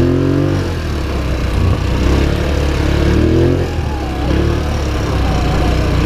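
Polaris Sportsman XP 1000 S ATV's twin-cylinder engine running under way. Its pitch rises and falls as the throttle is worked, once near the start and again about three seconds in.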